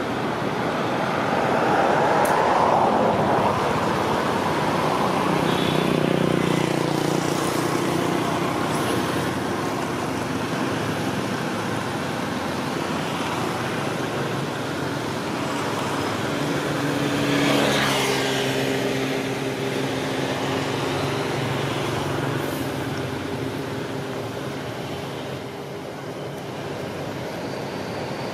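Road traffic: a steady hum of vehicle engines over tyre noise, with one vehicle passing close about two-thirds of the way through.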